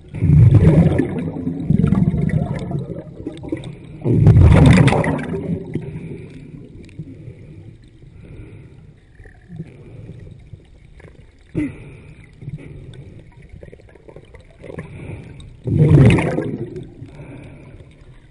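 Underwater recording of air bubbles rising past the microphone: loud bursts of bubbling and rumbling, three close together at the start and one more near the end, with a low steady rush of water between them.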